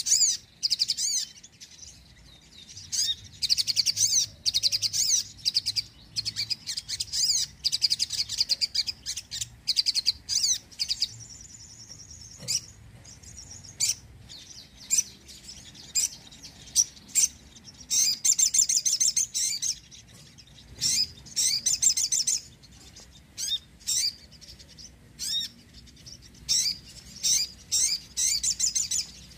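Sogon (a sunbird) singing: fast, high-pitched twittering bursts of a second or two, broken by sharp single chips and short pauses.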